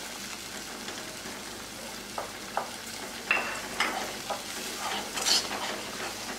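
Semolina cooking in ghee and water in a kadai, sizzling steadily while a wooden spatula stirs it, with several short knocks and scrapes of the spatula against the pan from about two seconds in. The hot water has just been added and is being absorbed into the roasted semolina.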